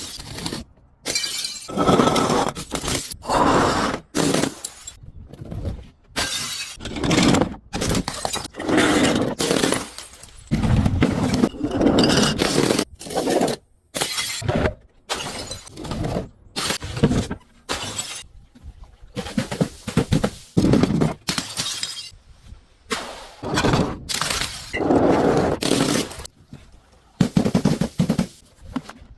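Things being crushed and smashed one after another, with glass breaking: a long run of crunching, shattering bursts, each lasting about a second, with short pauses between them.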